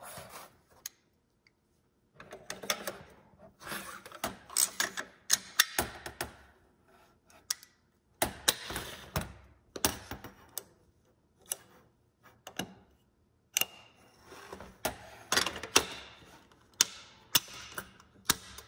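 Metal rifle parts being handled and fitted together: an AR-pattern bolt carrier group slid into the upper receiver and the upper seated onto the lower receiver. It comes as irregular clicks, clacks and short metallic scrapes with brief pauses between them.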